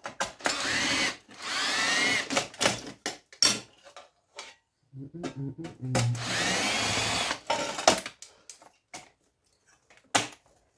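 Power drill-driver backing out screws, running twice for about two seconds each, its motor whine rising in pitch as it speeds up. Short clicks and knocks of handling fall between the runs.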